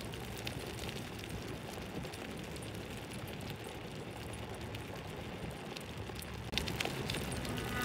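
Skateboard wheels rolling over pavement: a steady rough rumble with a few faint clicks.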